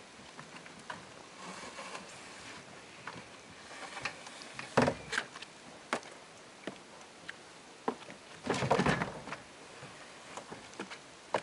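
Kayak hull knocking and scraping on the wooden kayak launcher as it is pushed into place: scattered light knocks and clicks, with two louder scrapes about five and nine seconds in, the second the longest and loudest.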